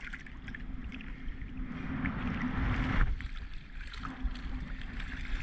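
Ocean water sloshing and splashing around a surfboard, over a steady rumble. A louder rush of water builds about two seconds in and cuts off suddenly about a second later.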